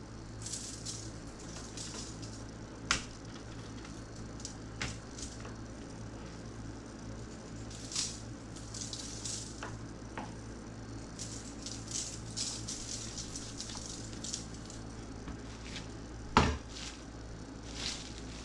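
Salt sprinkled by hand onto raw chicken breasts on a wire rack: faint, scattered hissy patter of falling grains, with a few light clicks and one louder knock about sixteen seconds in, over a steady low hum.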